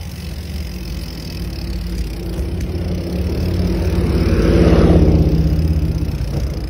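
A car passing close by, its engine and tyre noise swelling to a peak about four to five seconds in and then fading, over a steady low rumble.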